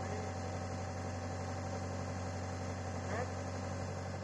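Hitachi excavator's diesel engine running steadily, a constant low drone heard from inside the operator's cab.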